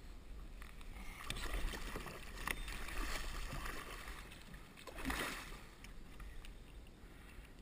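Water splashing and swishing against a Hobie kayak's hull in uneven surges. It is louder from about a second in to four seconds, and again briefly around five seconds.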